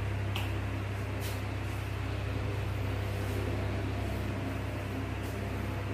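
A steady low electrical or machine hum, with a few faint brief clicks.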